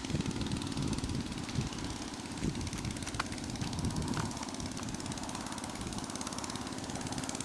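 Go-kart's 10 hp Tecumseh vertical-shaft lawnmower engine running under way, a steady rapid putter that grows a little louder near the end as the kart comes closer.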